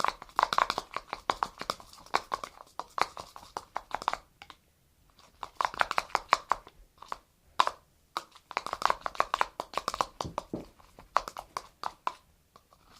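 Glue-and-glycerin slime being stirred, a fast run of sticky, wet clicks in several bursts with short pauses, as the slime thickens while it is mixed.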